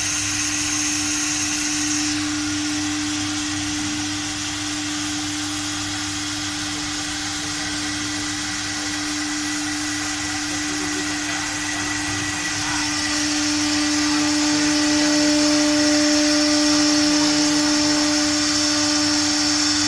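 Spindle of a three-spindle wood CNC router running with a steady pitched whine while its bit routes grooves into a wood panel, with a continuous cutting hiss over it. The sound grows a little louder about two-thirds of the way through.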